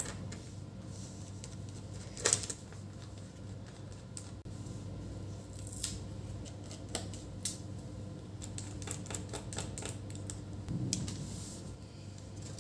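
Scattered small clicks and taps of a screwdriver and fingers working the screws and metal bottom cover of an Asus ZenBook UX430 laptop, with one sharper click about two seconds in, over a low steady hum.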